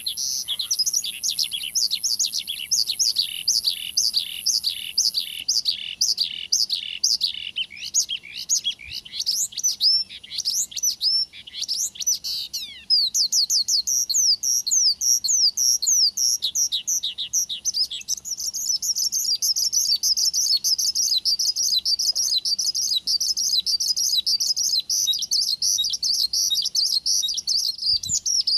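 Horsfield's bush lark (branjangan) singing without pause: a run of quick, high, down-slurred notes, about three or four a second, that turns from about halfway into a faster, denser high trill.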